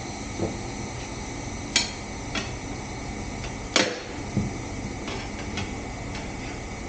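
Several short, sharp metal clanks and knocks from tools being handled during work on a skid steer wheel, the loudest about four seconds in, over the steady noise of a shop fan.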